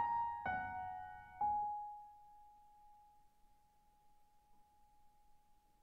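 Piano playing its last few notes, three struck in the first second and a half; the final note is left to ring and fades away over several seconds.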